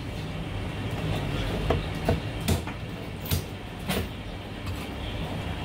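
Chinese cleaver chopping marinated goose on a thick wooden chopping block: several sharp chops at uneven intervals, meat and bone cut through onto the wood, over a steady low rumble.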